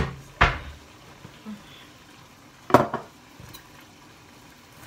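Kitchen clatter of a glass bowl and utensils knocked on the worktop: a knock at the start, another about half a second in, and a louder one near three seconds in, with quiet between.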